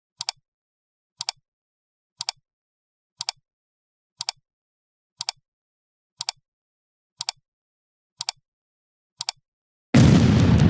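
A short, sharp double click, like a clock tick, repeated once a second ten times. A loud blast starts just before the end.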